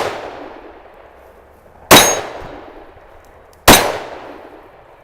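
Glock 31 Gen 4 pistol in .357 SIG firing twice, a little under two seconds apart, each shot a sharp crack with a long trailing echo. The echo of a shot fired just before also fades away at the start.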